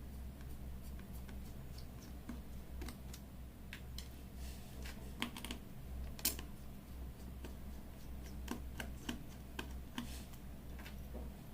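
Irregular small clicks and taps of hand tools on a smartphone's internal metal shield and screws as the phone is taken apart, over a low steady hum.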